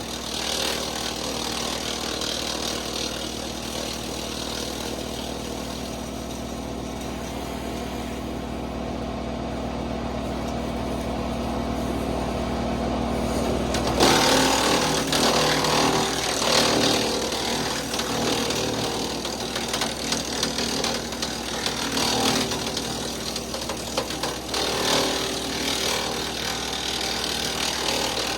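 Kubota L3901 diesel tractor driving a WoodMaxx MX-8800 PTO wood chipper, running steadily. About halfway through, the sound turns suddenly louder and uneven as the chipper starts chipping sapling wood fed into it.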